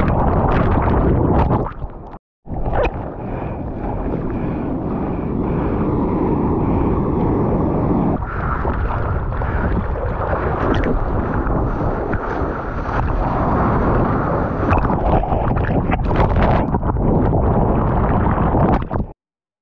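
Sea water rushing and wind buffeting a point-of-view camera's microphone in the surf, a loud, steady rush of noise. It drops out for a moment about two seconds in and cuts off abruptly near the end.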